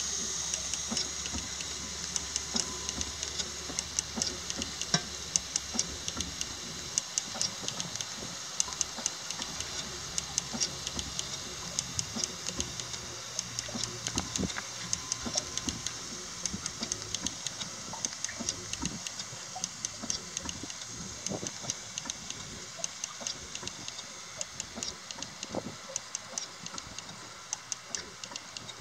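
6-inch scale Samson miniature steam traction engine ticking over slowly: a steady run of light clicks over a steady high hiss, easing slightly toward the end.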